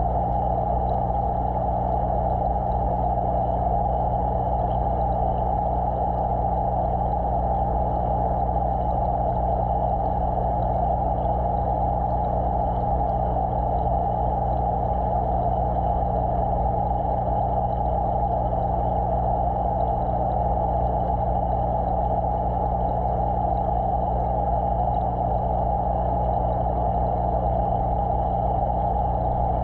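Steady, unchanging low hum with a band of hiss: aquarium equipment droning, heard through the water by a submerged camera.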